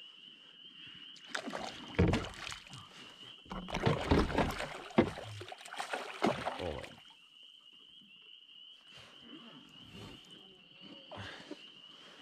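A hooked fish thrashing and splashing at the lake surface on a fly line. There is a short burst of splashing about two seconds in, then a longer run of heavy splashing from about three and a half to seven seconds, after which it quietens. A steady high-pitched tone sounds under the quieter parts.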